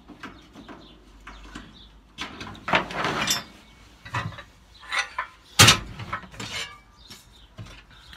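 Metal van racking parts being handled: a run of knocks, clatters and scrapes against the steel shelving. The loudest sharp knock comes about five and a half seconds in.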